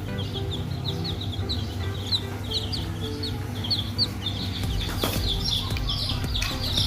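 Chicks peeping, a steady stream of short high chirps several times a second, growing busier near the end.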